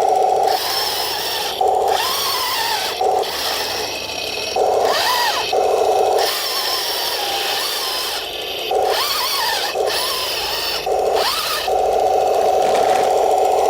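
RC M26 tank with metal tracks running: a steady buzzing drone, broken about seven times by stretches of high grinding with a whine that rises and falls as the drive motors and tracks work.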